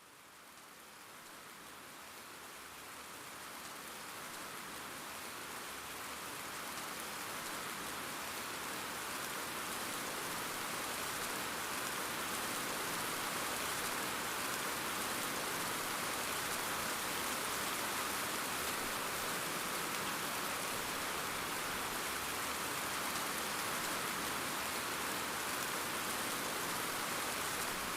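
Steady rain falling, a dense even hiss that swells up over the first ten seconds or so and then holds level.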